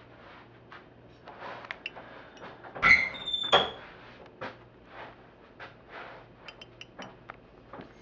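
3x3 Rubik's Cube turned by hand, its plastic layers rubbing and clicking in a series of soft turns, with two louder, squeaky turns about three seconds in.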